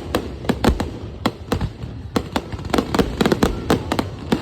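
Fireworks going off in quick succession: a steady barrage of sharp bangs and cracks, about three or four a second and some overlapping, with crackling between them.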